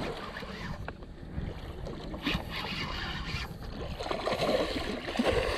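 Water sloshing and splashing around a small fishing boat, with a few light knocks, while a hooked redfish is fought near the boat; the splashing grows busier about four seconds in.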